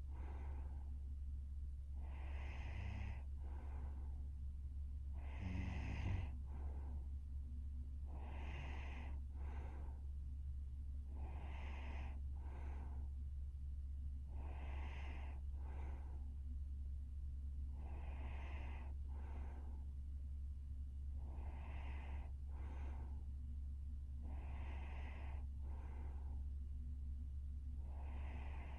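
Young woman snoring in her sleep, about one breath every three seconds, each a longer sound followed by a short fainter one, with a brief louder snort about six seconds in. A steady low hum runs underneath.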